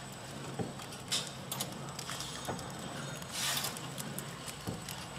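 Horizontal flow wrap packing machine running: a steady low hum with irregular mechanical clicks and ticks, and a brief hiss about three and a half seconds in.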